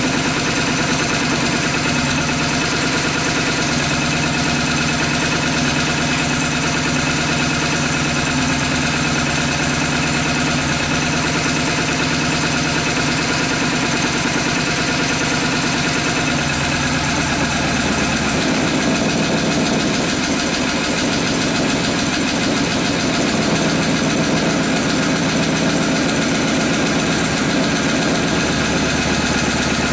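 5.5 hp Honda small engine running steadily unloaded on a feed of HHO gas and rubbing alcohol pushed in with compressed air; its note shifts slightly about halfway through.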